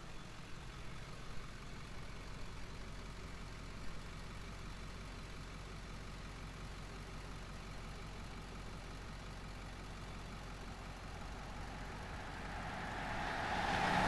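Steady low engine hum, then a pickup truck drives past close by near the end, its engine and tyre noise building to a peak.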